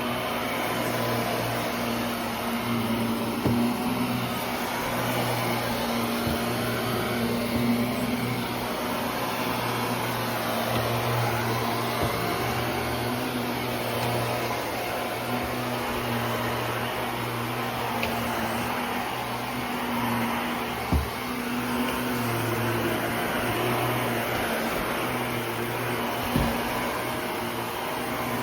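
Vacuum cleaner running steadily, a motor hum over a broad rush of suction, with a few brief knocks, the clearest two near the end.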